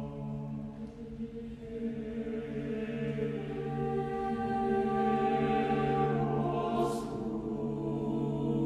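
Choir singing long sustained chords. Higher voices join about three seconds in and the sound swells.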